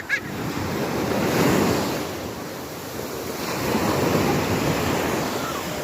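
Sea waves washing in, swelling twice, with wind buffeting the microphone.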